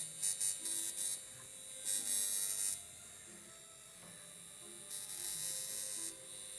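Darsonval high-frequency device running with a steady high whine, its glass comb electrode sparking to fingers held close: short crackling snaps in the first second, then longer sizzling stretches about two and five seconds in.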